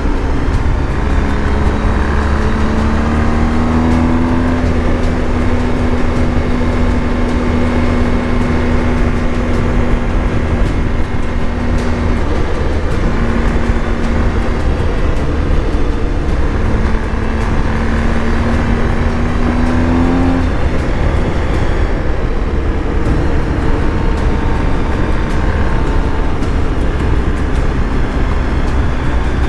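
BMW R 1250 GS Adventure motorcycle's flat-twin boxer engine running at road speed under a steady low wind rumble. The engine note climbs as it accelerates, eases off about twelve seconds in, climbs again, and drops abruptly at about twenty seconds as if on a gear change, then rises once more near the end.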